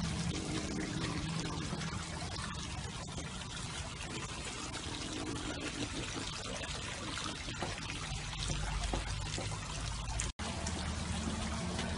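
Water trickling steadily, with a low hum underneath. It cuts out for an instant near the end.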